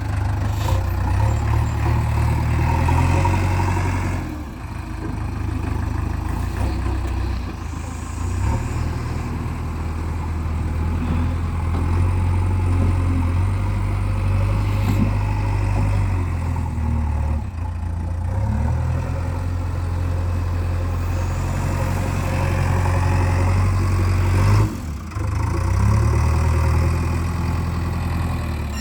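Diesel engine of a JCB 3DX backhoe loader running under working load, its engine note rising and falling in stretches as it digs and loads, with a brief dip about twenty-five seconds in.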